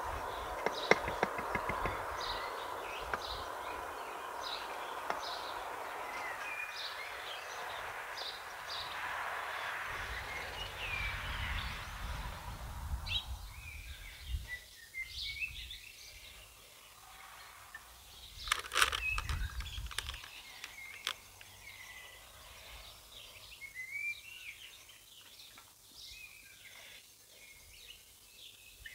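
Birds chirping outdoors over a steady rushing background noise that fades out about halfway through. A brief cluster of knocks and low rumble comes about two-thirds of the way in.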